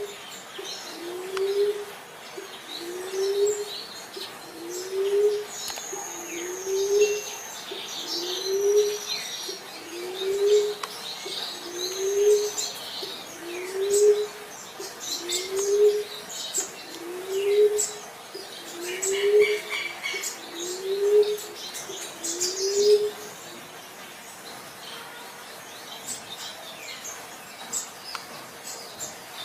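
Common emerald dove (punai tanah) cooing: a low, rising coo repeated evenly about every two seconds, around a dozen times, then stopping. Other small birds chirp higher up behind it.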